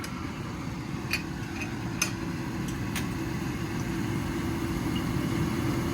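Steady low rumble of kitchen machinery, with a few light clicks of utensils against cookware in the first three seconds.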